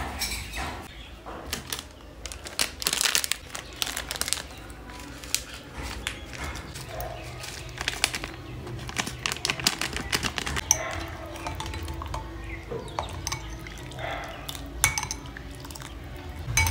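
A steel spoon clinking and scraping against a ceramic bowl in clusters of light taps, stirring instant soup powder into water.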